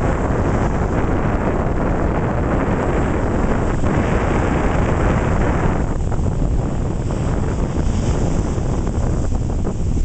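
Atlantic surf: small waves breaking and foam rushing over the sand, with wind buffeting the microphone as a heavy low rumble. The rush of the wash is fullest until about six seconds in, then eases.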